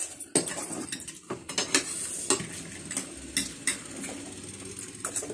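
Spoons and forks clinking and scraping against ceramic plates and a bowl in many short, irregular clicks, with close-up eating sounds.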